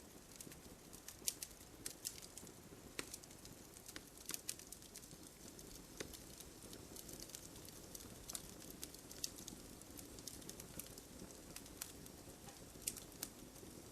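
Wood fire in a fireplace crackling: scattered small snaps and pops, a few a second, over a faint steady hiss of burning.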